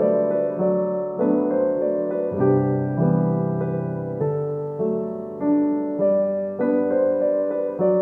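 Background piano music: a piano track playing melody and chords, with new notes struck every half second or so.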